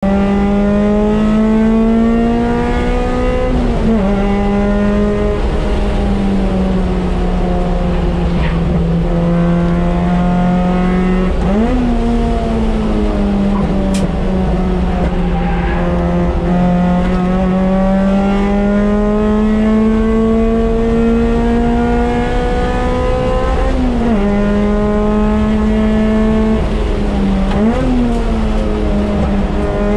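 Car engine heard from inside the cabin while driven hard, its pitch climbing slowly under load and jumping or dropping sharply at four gear changes, over a steady low road rumble.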